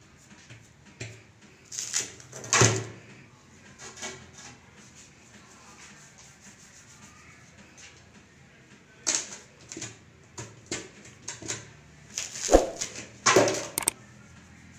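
Hands pressing and smoothing a dough seal around the rim of a large aluminium cooking pot: scattered soft knocks and rustles of fingers and dough against the metal, a few about two seconds in and a busier run in the last five seconds.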